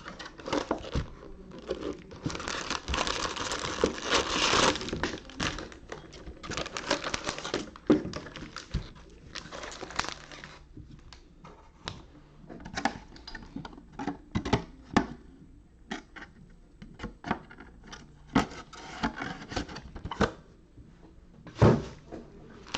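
Plastic wrapping on a trading-card box and its packs crinkling and tearing in several bursts, followed by scattered light taps and clicks of handling.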